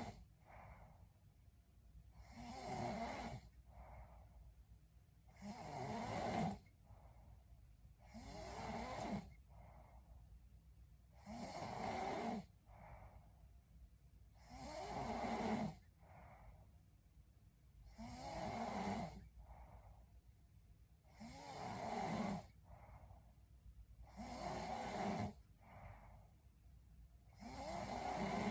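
A woman snoring in her sleep, in an even rhythm of one snore about every three seconds, each followed by a shorter, fainter sound.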